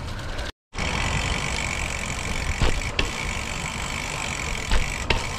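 Gravel bike rolling along a rough trail: steady tyre rumble and wind noise with a few sharp knocks from bumps. The sound cuts out completely for a moment about half a second in.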